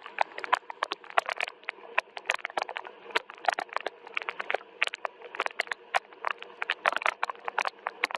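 Soft rain, heard as many separate drops tapping irregularly several times a second over a light steady wash.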